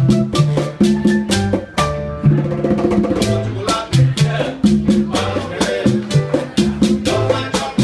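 Live Latin jazz band playing a salsa-style groove: piano chords over upright bass lines, with conga drums and gourd hand percussion keeping an even rhythm. About two seconds in the drums drop out for a moment under a held piano chord, then the groove picks up again.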